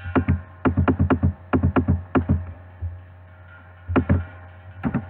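Rapid, irregular clicks at a computer: about a dozen in the first two and a half seconds, then a short cluster near four seconds. A steady low mains hum runs underneath.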